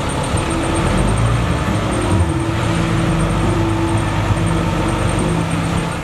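Diesel engine of heavy earthmoving machinery running steadily under work, a low rumble with a steady engine hum.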